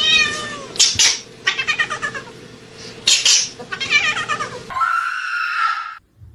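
A cat meowing and yowling: several short calls, then one long, held call that cuts off near the end.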